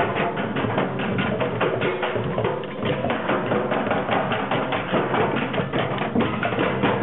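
Group percussion playing a fast, busy rhythm: many drums and wooden or hard hand percussion struck together in dense, rapid strokes.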